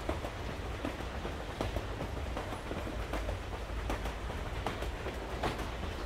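Passenger train running, heard from inside the carriage: a steady low rumble with scattered irregular clicks and knocks.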